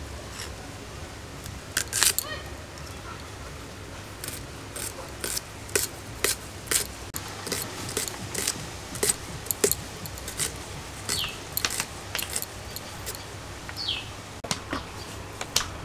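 Onions being chopped with a blade: irregular sharp cutting clicks, about one or two a second, over a steady low hum.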